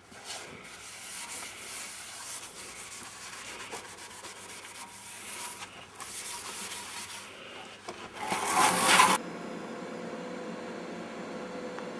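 Sheet metal being rubbed down by hand with an abrasive pad: a scratchy hiss in strokes, loudest just before it cuts off about nine seconds in. Then comes a steady hum with a thin tone from TIG welding the sheet metal.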